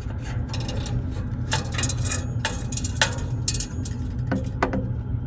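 Metal clinks and knocks as a gas water heater's burner assembly is handled and set into place on its seat at the bottom of the combustion chamber, the sharpest knock about three seconds in, over a steady low rumble.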